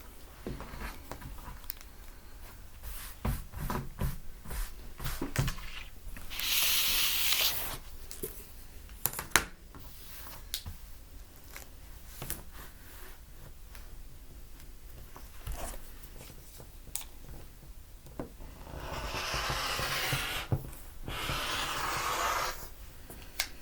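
Fabric being handled: cloth rubbing and sliding as it is unfolded from a bolt, with scattered light knocks. Longer rustling stretches come about a third of the way in and again near the end.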